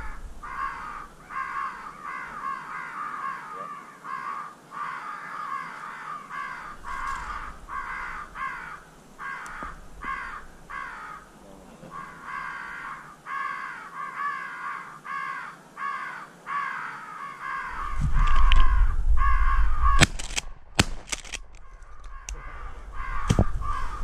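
Crows cawing in a long, rapid series of harsh calls. Near the end a low rumble and a few sharp cracks cut in.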